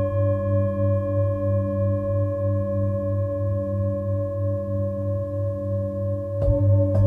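Large Himalayan Jambati singing bowl ringing with a deep, steady hum that pulses as its tones beat against each other. It is struck again twice near the end, in quick succession, renewing the ring.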